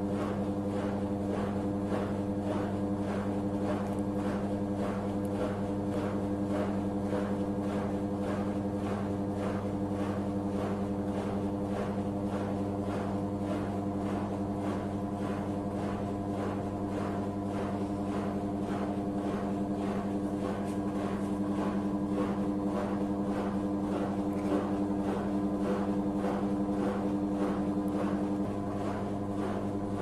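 Samsung automatic washing machine running its cycle: a steady low hum with a quick, even pulsing over it.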